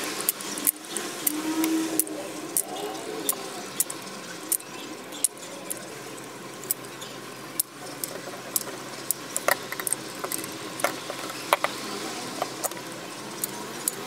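Manual caulking gun clicking and clacking at irregular intervals as its trigger is squeezed, pushing silicone sealant out onto the plastic liner.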